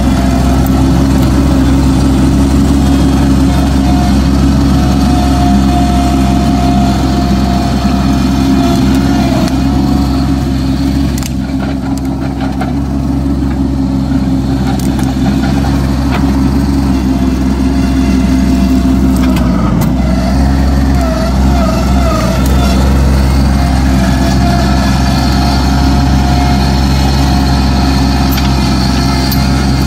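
Bobcat stand-on mini track loader's diesel engine running steadily under hydraulic load as the machine pulls a chained ficus hedge stump. The engine dips briefly about a third of the way in and wavers in pitch around two-thirds of the way through.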